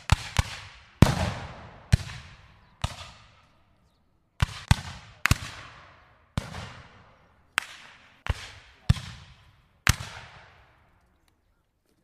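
Rifle and musket gunshots fired at irregular intervals, about fourteen in all, some in quick pairs. Each sharp crack trails off in a rolling echo.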